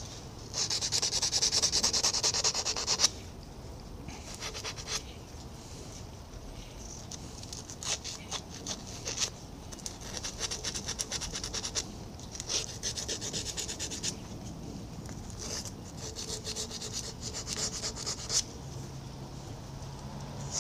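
Abrasive paper rubbed back and forth around a steel lathe shaft held in a vise, polishing the shaft. A loud spell of rapid scrubbing comes first, then quieter, stop-start spells of rubbing with short pauses between them.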